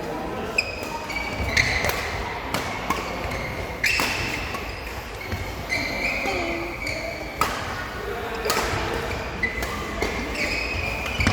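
Sports hall ambience: irregular echoing thuds of balls bouncing and being struck, with short high squeaks of shoes on the court floor and faint background voices.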